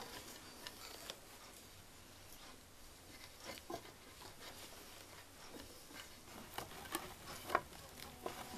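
Faint rustling and scattered light clicks as hands handle the yarn and wooden frame of a small hand band loom. The ticks come more often and a little louder near the end.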